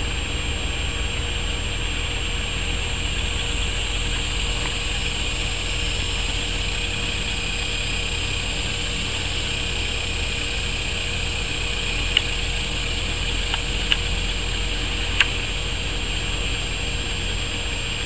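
Steady droning hum with a high hiss, unchanging throughout, with three faint short clicks in the second half.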